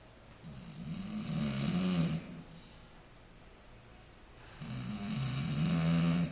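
A man snoring: two long snores about four seconds apart. Each grows louder as it goes and carries a low, droning pitch that is likened to a bull.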